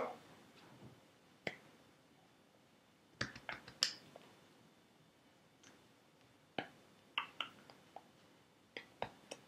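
Scattered sharp taps and clicks, some in quick clusters, from a person signing: hands striking each other and the chest.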